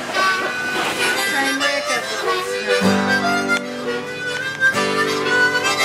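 Harmonica playing a fast fiddle-style tune: quick single-note runs, then full held chords about three seconds in and again near five seconds.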